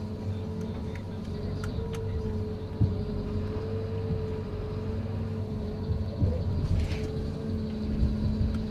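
John Deere 810E forwarder running steadily, heard from inside its cab: a constant engine drone with a wavering whine on top. A couple of sharp knocks come about three and six seconds in.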